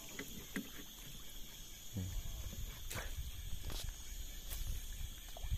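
Steady chorus of forest insects, several shrill high tones held constant, with a few sharp ticks scattered through it.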